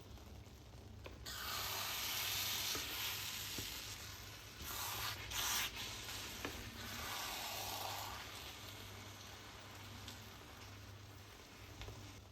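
Food sizzling in hot oil in a pan: the hiss swells suddenly about a second in, surges loudest around the middle, then dies back to a gentle sizzle.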